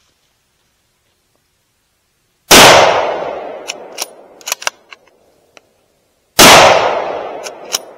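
Two rifle shots from a scoped .243 Winchester about four seconds apart, each with a long fading echo, then a few sharp metallic clicks as the bolt is worked to chamber the next round.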